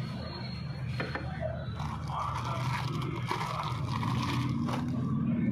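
Hands handling a brass diya and its plastic wrapping: irregular scraping and crinkling, with a sharp click about a second in and another near the end.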